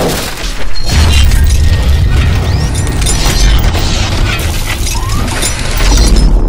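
Cinematic intro sound effects: a sudden loud crash like shattering glass, then dense, bass-heavy booms and crashing over music.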